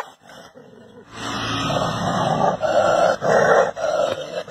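A dog barks once, sharply, at its own reflection in a mirror. After a short pause, dogs make a continuous harsh growling and snarling sound that pulses about twice a second.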